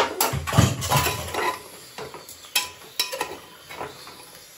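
Metal spatula clinking and scraping against a pressure cooker pot while chicken pieces are stirred. The knocks and scrapes come thickest in the first second and a half, then a few single clinks follow.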